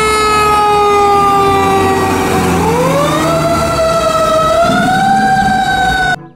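Fire truck siren as a fire engine pulls out: one long tone that slides slowly down, then rises again about two and a half seconds in and holds at a higher pitch, over a low rumble. It cuts off suddenly near the end.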